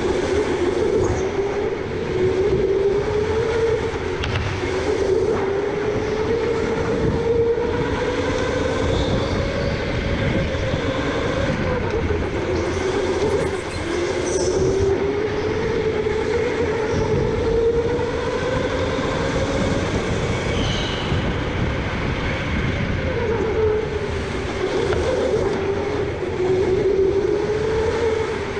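Electric go-kart motor whining, its pitch rising and falling every second or two as the kart speeds up and slows through the corners, over a steady low rumble from the kart running on the track.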